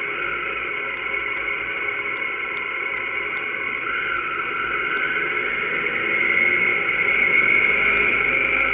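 Motorcycle riding along a street: steady engine and wind noise picked up by the bike's camera, growing a little louder near the end.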